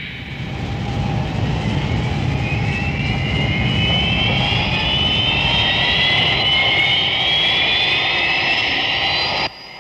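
Jet airliner engines whining over a steady rumble, the whine rising slowly in pitch as they spool up for the takeoff run. The sound cuts off abruptly near the end.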